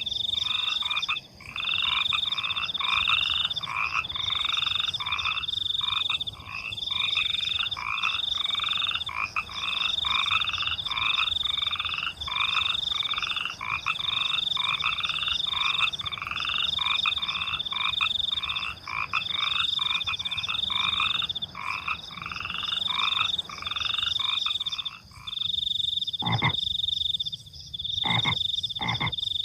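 A night chorus of frogs croaking in fast, repeated calls, over a steady high trill of crickets. The croaking chorus stops a few seconds before the end, leaving the cricket trill and a few short, sharp calls.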